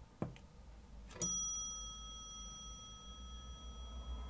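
A push-button click, then about a second later a single bell ding from an elevator hall-lantern panel. The ding rings on for several seconds, fading slowly, as the down-direction arrow lights.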